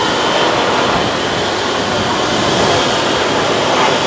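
Twin jet engines of a Boeing 777-200ER at taxi power as the airliner rolls past, a steady rushing noise that swells slightly near the end.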